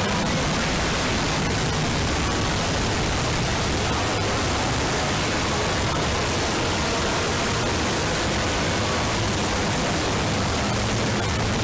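Loud, steady static noise hissing across the whole range, with faint crackles scattered through it.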